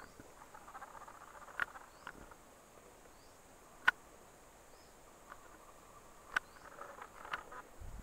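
A handful of sharp snaps, like twigs cracking in the tree canopy, at irregular intervals with the loudest about four seconds in, over faint rustling and insect chirping.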